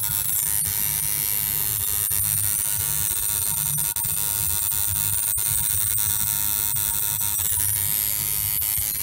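Electric tattoo machine buzzing steadily as the needle works on the skin.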